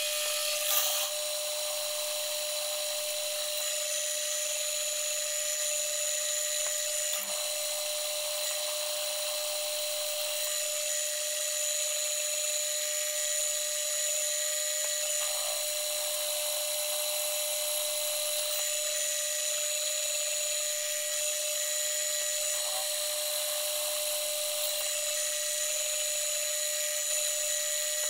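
Milling/drilling machine spindle running steadily, drilling a steel brake hub, heard sped up to a steady high-pitched whine.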